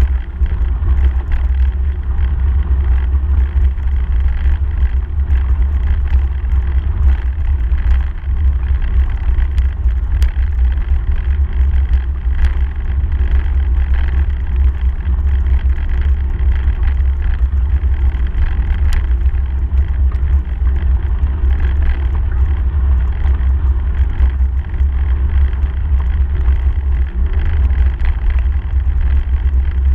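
Steady rumble of wind buffeting a bike-mounted camera's microphone, mixed with the tyre rolling over a gravel and dirt path, with a few light clicks and rattles.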